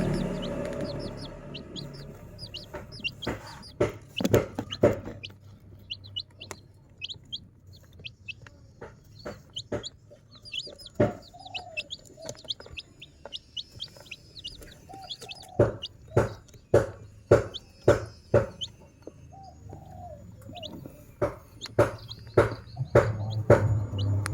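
Chicks peeping with many short, high chirps, with a few lower clucking calls among them. Frequent sharp taps and clicks come through, denser and louder in the second half.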